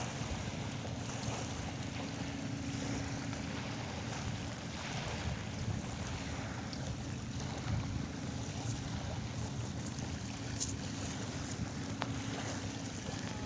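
Seaside wind rushing over the microphone with surf noise, steady throughout, over a constant low hum.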